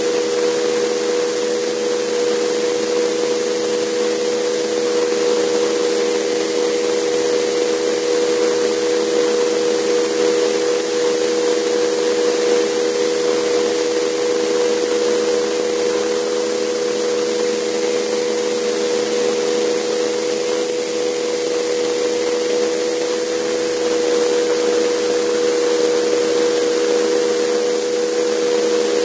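Jetcat PTH-2 turboshaft turbine and rotor of a radio-controlled Vario Alouette II helicopter running steadily in flight, heard from a camera mounted on the helicopter: a constant hum of a few steady tones over a broad, even hiss.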